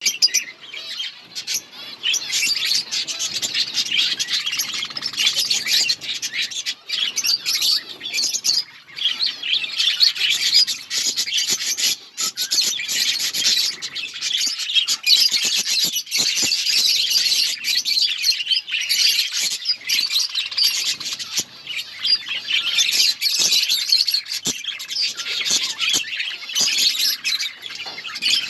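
A flock of budgerigars chirping and chattering together, a continuous dense warble with sharper squawks mixed in.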